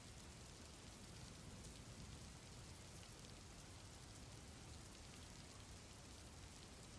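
Very faint, steady rain: an even soft hiss with tiny ticks of drops.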